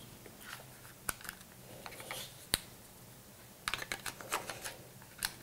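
Battery being fitted into a Fujifilm X100T camera: light plastic clicks and handling, with one sharp click about two and a half seconds in and a quick run of small clicks near the end.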